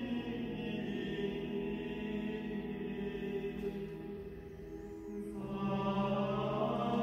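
Background music of slow chanted singing with long held notes; the sound dips slightly, then a new held chord comes in about five seconds in.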